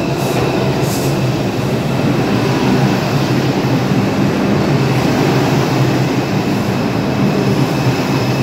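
R142 subway train rolling along the platform close by: a steady, loud rumble of wheels and cars with a faint high-pitched whine held throughout.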